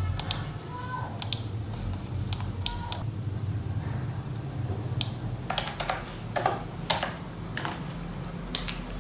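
Typing on a faux-mechanical keyboard: scattered clicky keystrokes, a few in the first three seconds, a pause, then a quicker run of clicks in the second half.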